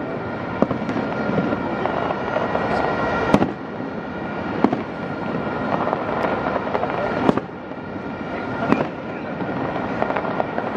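Fireworks display going off: a continuous crackle of bursting shells, with about six sharper bangs a second or two apart.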